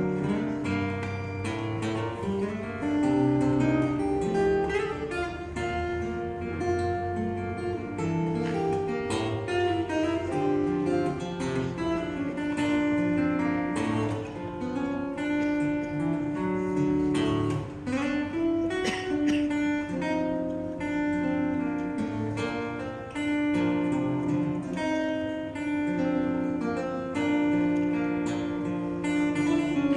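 Fingerstyle acoustic guitar playing a melody over plucked bass notes with some strummed chords.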